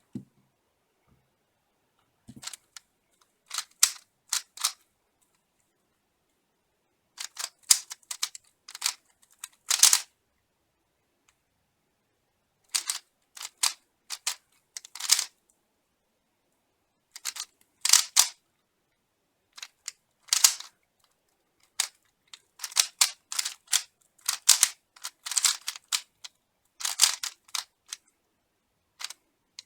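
Speed cube being turned fast during a timed solve: quick runs of plastic clicks from the layer turns, in bursts of a second or two with short pauses between.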